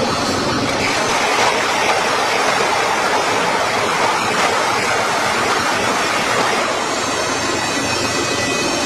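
Steady, loud noise of heavy metal-forming machinery in a factory, an even rush with no distinct knocks or tones.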